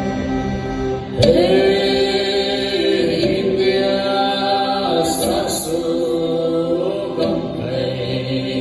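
Traditional Thadou-Kuki dance song with group chanting voices, starting sharply about a second in over sustained music.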